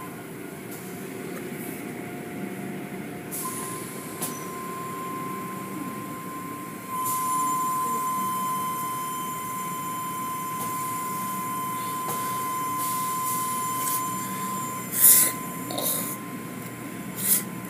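Automatic tunnel car wash machinery running: a steady mechanical rumble and water spray, with a thin high steady whine that sets in a few seconds in and grows louder about seven seconds in. A few short, loud bursts of noise come near the end.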